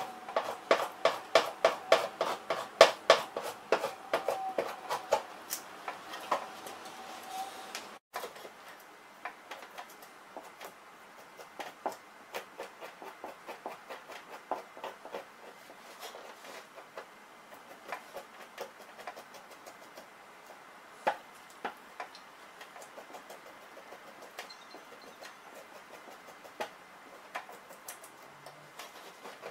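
Two-handled fleshing knife scraping fat and flesh off a beaver pelt stretched over a fleshing board, in quick, even strokes about two or three a second. After a break about eight seconds in, the scraping strokes come softer and more irregular.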